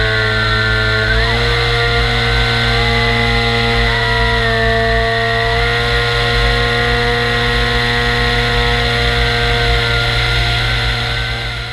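Model airplane's motor and propeller running at flight power, a steady buzzing whine whose pitch steps up about a second in and shifts again a few times, over low rumbling wind buffeting on the onboard microphone.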